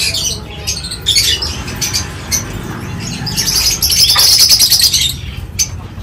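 Many cage birds in a mixed aviary of parakeets and finches chirping and squawking. About three seconds in, a louder stretch of dense high chatter begins, lasting nearly two seconds. A few short clicks are scattered through it.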